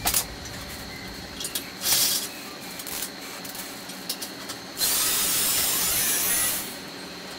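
Cordless power driver running at the ceiling light fitting: a short blip about two seconds in, then a steady high-pitched whir lasting about two seconds in the second half before it stops.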